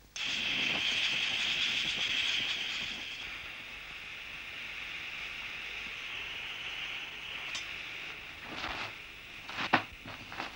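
Small camping stove burning with a steady hiss that comes on suddenly and eases slightly after about three seconds. Near the end, rustling and a few sharp knocks from handling gear, one knock the loudest sound.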